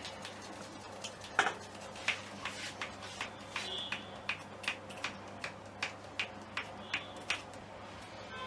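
A regular run of sharp clicks, about two to three a second, starting about a second and a half in with the loudest one, over a low steady hum.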